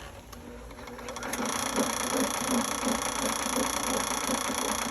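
A motorized drain-cleaning machine starts up about a second and a half in and runs steadily, working to clear a blocked sewer drain.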